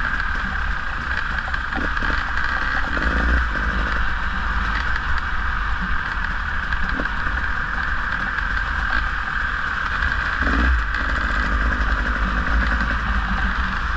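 Riding a bike along a rough woodland trail: a steady hiss of wind and tyres, heavy wind rumble on the microphone, and occasional knocks and rattles as the bike goes over bumps.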